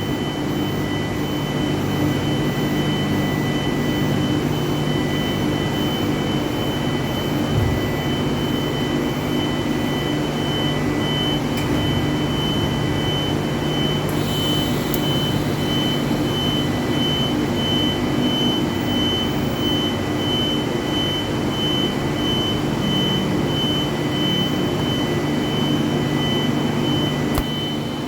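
Argon (TIG) welding in progress: a steady hissing buzz from the arc and welding machine, with a constant high whine over a low hum. A sharp click comes near the end, and the sound drops slightly after it.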